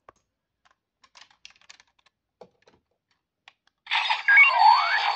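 Light plastic clicks from the DX Volcano Vistamp toy being handled and pressed. About four seconds in, its small speaker starts a loud electronic sound effect with rising and arching sweeps in pitch.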